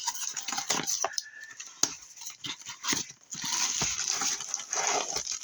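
Packaging being handled and unwrapped: irregular crinkles, crackles and light taps, denser crinkling from about three and a half to five seconds in.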